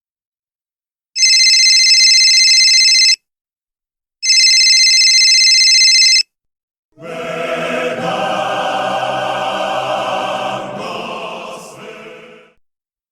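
A telephone bell rings twice, each ring about two seconds long with a short pause between. It is followed by a sustained choir-like chord that holds for several seconds and then fades out.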